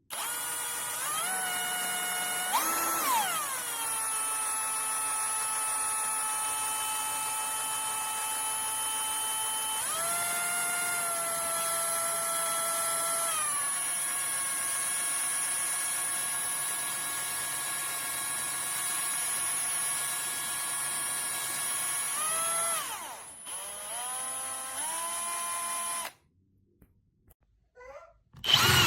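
Bosch UniversalImpact 18V-60 cordless combi drill's motor running with a steady whine, its pitch stepping up and down several times as the speed changes. It stops near the end, then starts up again loudly.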